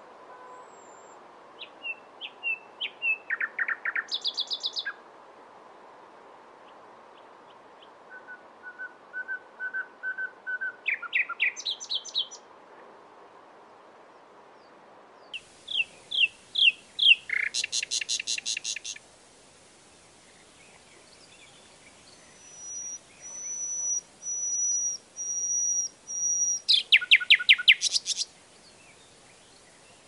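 Nightingale singing: four phrases, each of repeated whistled notes that speed up into a fast, loud rattling trill, with pauses of two to three seconds between them. One phrase is a run of high, pure, drawn-out whistles before the trill.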